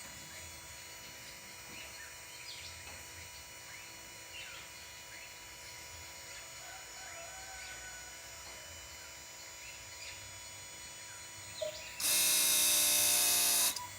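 Toyota Aqua's brake accumulator pump motor buzzing loudly for under two seconds near the end, starting and stopping abruptly. It is cycling more often than normal because tiny leaks in the accumulator pressure tank let the pressure drop: the onset of brake accumulator failure. Faint bird chirps beforehand.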